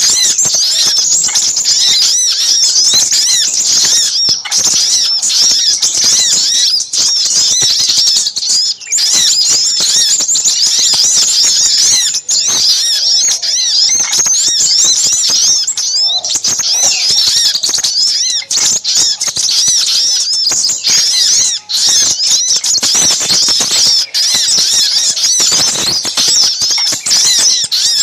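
Dense, busy chorus of high-pitched chirps and twitters from little spiderhunters (sogok ontong) mixed with crimson sunbirds (sepah raja), calling agitatedly as a bird-trapping lure call. The quick, overlapping chirps run on without a break.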